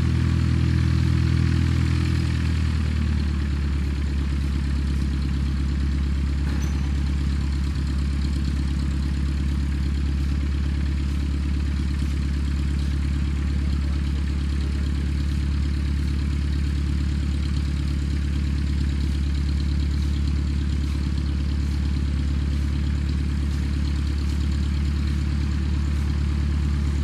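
An engine running steadily at idle: a low, even hum that shifts slightly a couple of seconds in and then holds.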